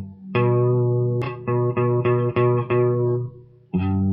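Guitar chord strummed over and over, held with just the first two fingers of a G chord shape: one strum that rings, then about six quick strums in a row, a pause, and another strum near the end.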